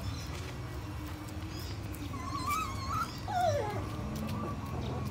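Puppy whining while play-wrestling with another puppy: a wavering whine about two seconds in, then a short falling whimper, over a low steady background hum.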